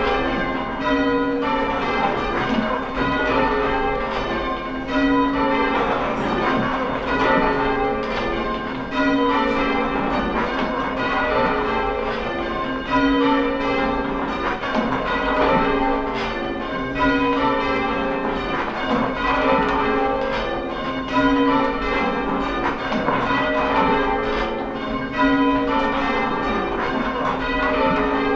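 Church tower bells rung in changes: a steady, unbroken sequence of strikes from the peal, with the deepest bell sounding about every two seconds.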